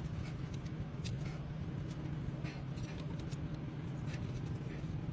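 Steady low hum of an idling vehicle engine, with scattered light clicks and ticks of handling over it.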